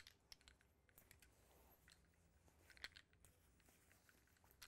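Near silence with faint scattered clicks and soft rustles of fabric being wrapped and gathered by hand; one slightly louder tick about three seconds in.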